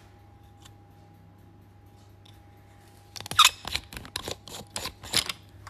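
A phone being handled up close by hand. After about three seconds of quiet room tone with a faint hum, there is a quick, uneven run of knocks, taps and rubs on the phone's body.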